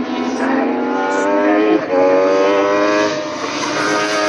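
Legends race car's Yamaha motorcycle engine revving hard as the car accelerates toward the listener, its note climbing in pitch and loudness, with a brief dip and drop in pitch about two seconds in before it climbs again.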